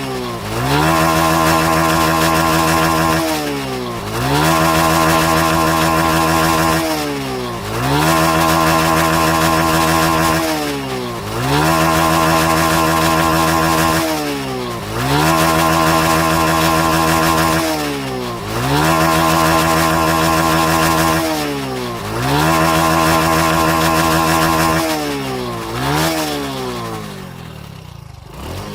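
Motorcycle engine revved hard again and again, about once every three and a half seconds. Each time the revs climb quickly, hang flat against the rev limiter, then fall away. The last blip is short, and the engine dies down toward idle near the end.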